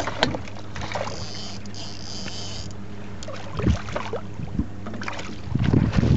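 Boat engine idling with a steady low hum. Splashing near the end as a fish is scooped into the landing net.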